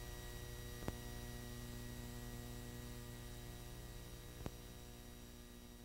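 Low steady electrical hum over faint hiss, with two faint clicks, one about a second in and one about four and a half seconds in. The hum slowly fades away.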